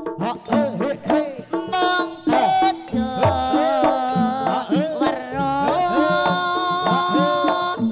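Jaranan pegon music played live through a sound system: kendang hand drums beat a quick pattern, their strokes bending in pitch. About two seconds in, a held melody line joins them.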